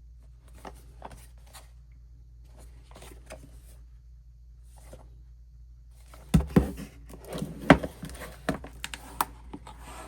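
Hands unpacking an album package: soft rustling of paper and cardboard, then from about six seconds in a run of sharp plastic-and-cardboard clacks and knocks as the box is opened and its contents are handled.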